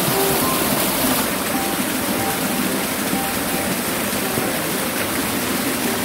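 Small waterfall splashing down over rocks, a steady rushing of water, with soft background music faintly underneath.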